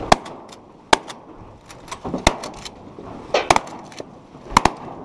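Shotguns firing at ducks: about six sharp reports spread over five seconds, with two quick pairs of shots near the end.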